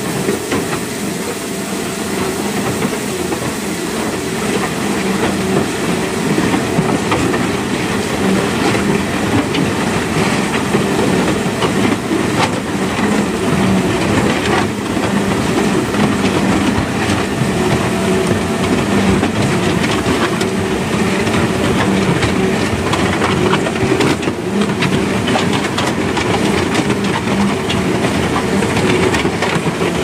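Concrete mixer pump running, with gravel and sand sliding from its loading hopper into the mixing drum: a steady machine hum under a continuous rattle of stones.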